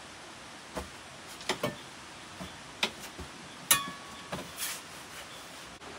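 A series of sharp knocks and clinks of hard objects, about seven in all. The loudest, a little past the middle, rings briefly.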